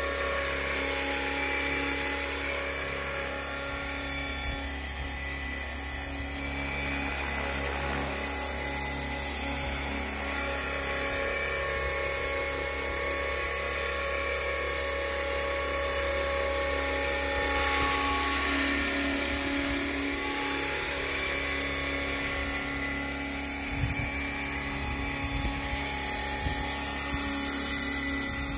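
Align T-Rex 500 radio-controlled helicopter flying, its electric motor and gears whining and its rotor blades whirring, the pitch dipping and rising several times as it manoeuvres.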